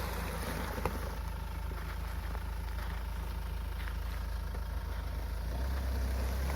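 Mahindra Scorpio S11 SUV's engine running steadily at low revs, a continuous low rumble.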